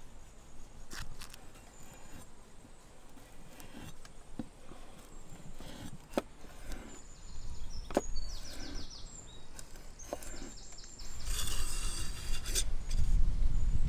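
Heavy cleaver blade knocking on a thick wooden chopping board while red chilies are chopped: a handful of separate sharp strikes, the strongest about six and eight seconds in. A low rumble comes up near the end.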